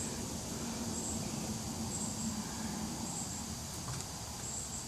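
Swarm of honeybees buzzing around an opened hive: a steady low hum. Short high chirps repeat about once a second above it.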